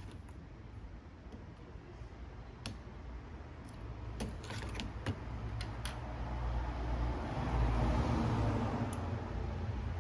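Small sharp clicks and taps of repair tools on a phone's parts, a handful scattered through, most of them around the middle, over a low rumble that swells in the second half.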